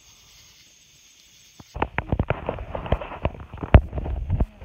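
A dense run of close, sharp clicks and knocks with rustling, starting about two seconds in.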